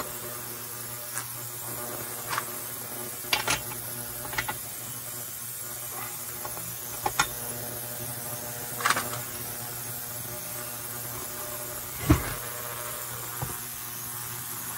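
Scattered clinks and knocks of hand tools and metal saw parts being handled during disassembly, about ten light strikes spaced irregularly, the loudest a heavier thump near the end, over a steady low hum.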